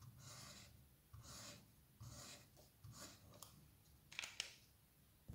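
Faint strokes of a felt-tip highlighter across paper, about four short scratchy swipes, followed by a couple of sharp clicks a little after four seconds in.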